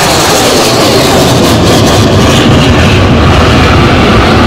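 HAL Tejas fighter's single jet engine, a GE F404 turbofan, passing overhead and climbing away: a loud, steady rushing noise with a deep rumble underneath.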